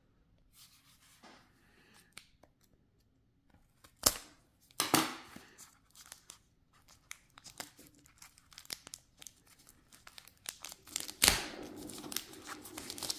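Plastic shrink-wrap being torn and crinkled off a new boxed deck of cards, with a few sharp knocks of handling about four, five and eleven seconds in.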